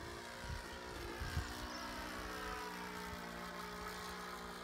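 ASP 61 FS four-stroke model aircraft engine, converted to run on petrol, running steadily in flight and turning a 12 x 8 three-blade propeller. Its pitch sinks slightly a second or two in as the plane passes, then holds. There is a low thump about a second and a half in.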